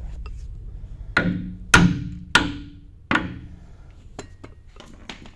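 Four ringing hammer blows on the metal flange bearing of a sweeper's brush shaft, struck on one side to tilt the bearing back and free it; the second blow is the loudest, and a few light clicks follow.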